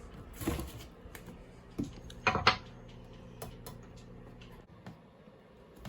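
A few separate sharp metal clinks and knocks as the solid aluminum bushings and hardware are handled on the steel subframe; the loudest comes about two and a half seconds in.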